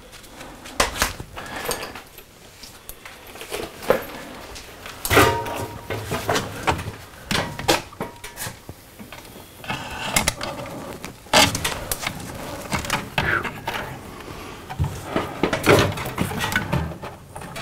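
Irregular knocks, clicks and scrapes of electrician's fish sticks being pushed and worked up through a hole in a ceiling bulkhead, the rods rubbing and tapping against its edges.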